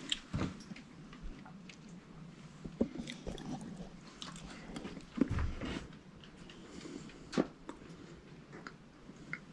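Footsteps on old, half-rotten wooden floorboards, with scattered faint creaks and knocks at irregular intervals.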